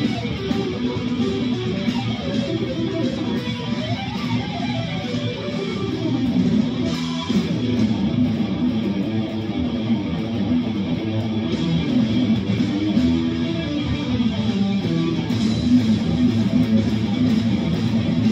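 Guitar music: a guitar playing continuously, with shifting notes and strummed chords.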